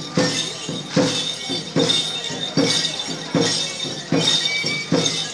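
Street dance music in a steady slow beat, a sharp stroke about every 0.8 s, each stroke carrying a clattering, jingling rattle, over a thin high piping tone.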